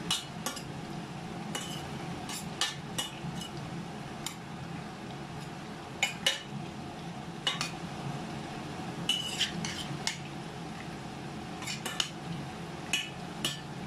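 Metal spoon stirring food in a stainless steel pot, scraping and clinking against its sides in irregular knocks, some with a short metallic ring.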